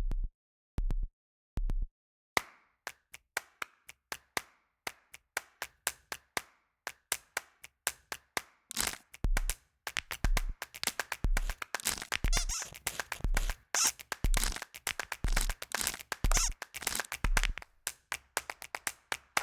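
Rhythmic percussion: a deep thump about once a second with sharp clicks and claps. The thumps stop after about two seconds while the clicks carry on alone, growing faster, then return at about nine seconds under a dense flurry of clicks.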